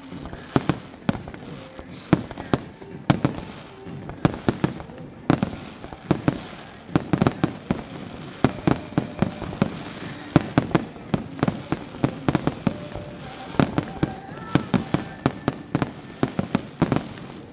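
Starmine fireworks barrage: shells bursting in rapid succession, several sharp bangs a second, with a rumbling echo between them.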